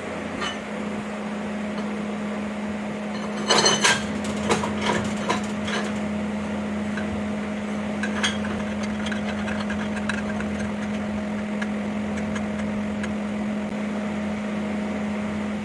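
Metal clinks and knocks from an old Craftsman table vise as its repaired, hand-rethreaded main screw is worked back into its threaded receiver: a cluster of them about three and a half seconds in, another knock near eight seconds, and light ticks after, over a steady low hum.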